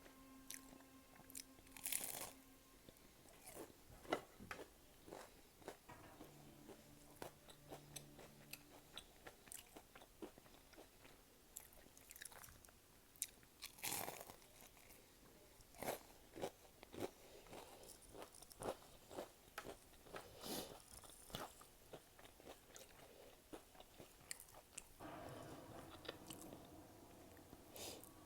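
Close-miked crunchy biting and chewing of battered, fried tempura shrimp: a run of irregular crisp crunches, with no talking.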